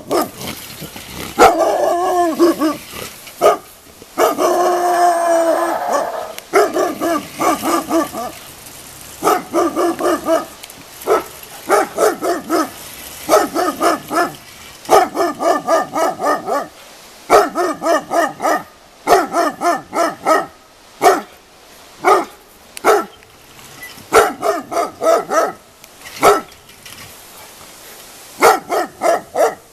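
Ten-month-old Jämthund (Swedish elkhound) barking at a bear, baying it as a hunting dog does: loud bouts of rapid barks, about four or five a second, with short pauses between, and a few longer drawn-out calls in the first six seconds.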